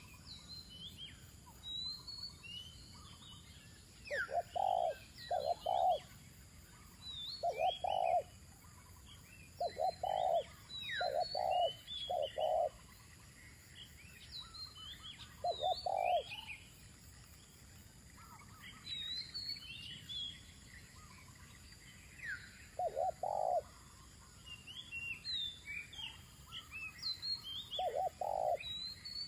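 Spotted dove cooing: short low coos in groups of two or three, repeated every few seconds with longer gaps between groups. Small birds chirp at a higher pitch throughout.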